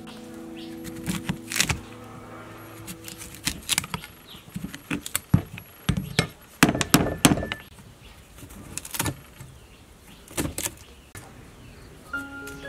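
Knife cutting and chipping the hard rind off a wood apple: irregular sharp cracks, scrapes and knocks of the blade against the shell and a wooden chopping board.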